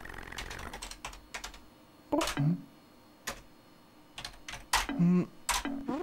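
Computer keyboard typing: keys clicking in short, irregular runs. Two short voice-like sounds come in about two and five seconds in.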